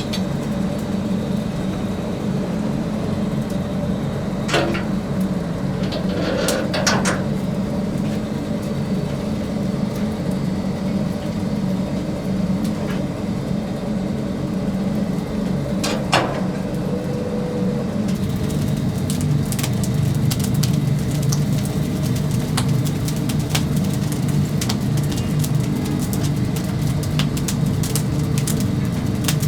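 Wood-fired chicken rotisserie roaster running with a steady low mechanical hum. A few sharp knocks sound in the first half, and from about two-thirds of the way in there is frequent crackling.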